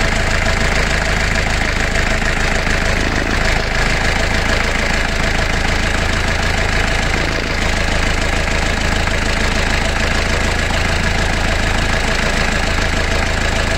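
Sailboat's inboard engine idling steadily, heard up close in the engine compartment.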